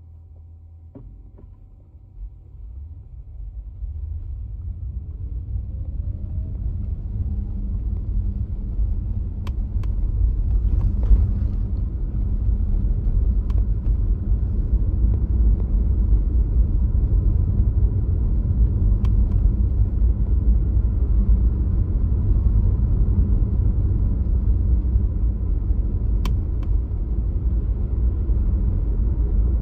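Tesla Model Y on the move, heard from inside: low road and tyre rumble builds over the first ten seconds or so as the car gets going, with a faint rising whine, then holds steady. About half a dozen sharp pops sound at uneven intervals, the accelerator popping noise the car has.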